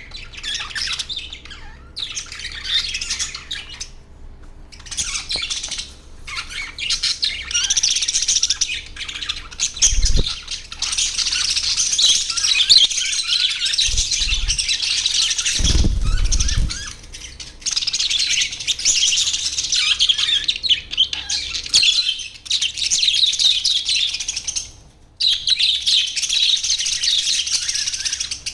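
A flock of budgerigars chattering and chirping together in fast, overlapping warbles, with short pauses and a few brief low thumps.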